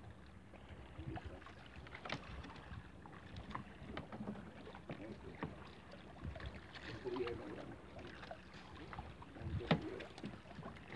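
Quiet sounds aboard a small wooden outrigger canoe at sea: water lapping at the hull, with scattered light knocks as the handline is handled.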